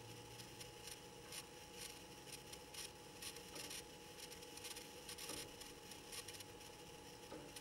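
Near silence: faint, irregular soft rustles of a fleece jacket as the arms and hands move slowly, over a faint steady tone.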